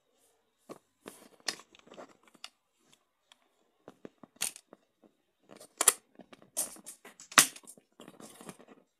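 Clear plastic waterproof housing of an action camera being handled and shut: an irregular run of hard plastic clicks, taps and short scrapes, with the sharpest snaps in the second half as the back door is closed.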